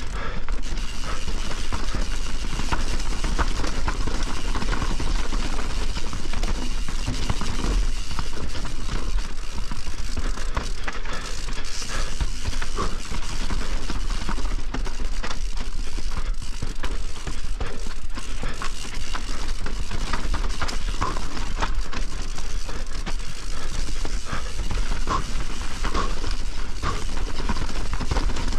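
Privateer 161 enduro mountain bike descending a wet, rough trail: tyres rolling and crackling over dirt, roots and rocks, with chain and frame rattling throughout over a steady low rumble.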